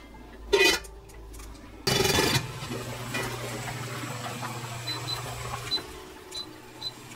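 A stainless steel pot clanks about half a second in, then water bubbles at a rolling boil with a steady low hum from the induction cooktop. From about five seconds on, a string of short high beeps comes from the cooktop's touch controls as the heat is turned down to low, and the hum stops.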